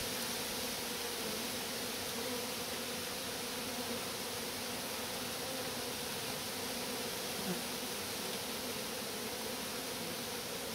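Honeybees buzzing in a steady drone around the hive entrance, with one small tap about seven and a half seconds in.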